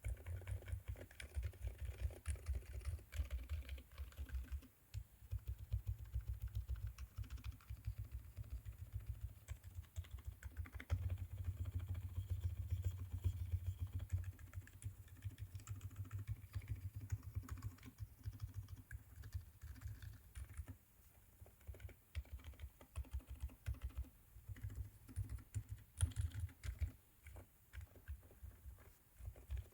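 Leopold FC660M mechanical keyboard with Outemu Silent Peach v2 silent switches and foam-dampened case and plate, typed on steadily in quick, muffled keystrokes. The typing eases briefly about five seconds in and again around twenty seconds in.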